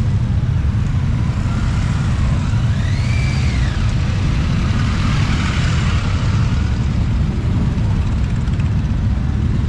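Motorcycles running in a street, a steady deep rumble of engines with no let-up. A brief high tone rises and falls about three seconds in.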